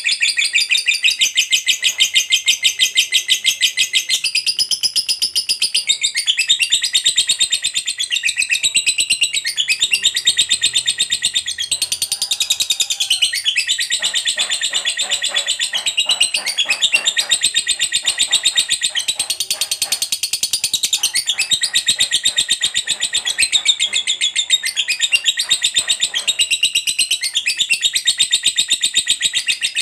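Lovebird singing the long, unbroken chattering trill called 'ngekek panjang': a very rapid stream of shrill, high notes that bends up and down in pitch without a pause. From about halfway to near the end the chatter turns rougher and fuller. A trill this long is the prized sign of a lovebird in full song.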